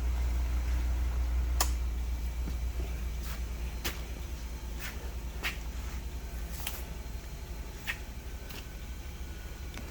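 Valve refacing machine's motor running with a low hum that fades away over several seconds as it winds down, with scattered sharp clicks and taps.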